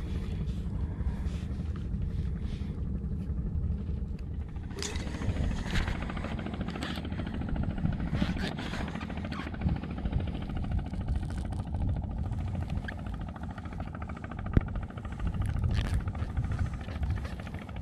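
Wind buffeting the microphone in a steady low rumble, with rustling and scraping from fishing line and a hand-held line spool being handled, busier from about five seconds in, and a single sharp tap about three seconds before the end.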